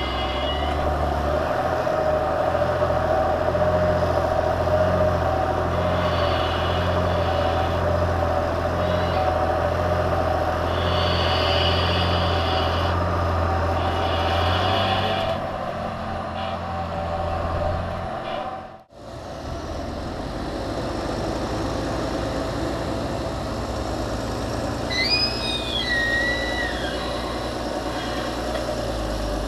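Fendt Vario tractor engines working under load, pushing maize silage, with a pulsing engine note during the first part. The sound cuts out abruptly for a moment about 19 seconds in, then a steadier engine note resumes, with a short high chirp about 25 seconds in.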